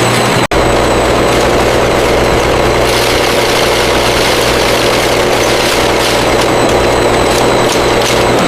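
Steady, loud running of factory machinery with a constant low hum, briefly cut off about half a second in.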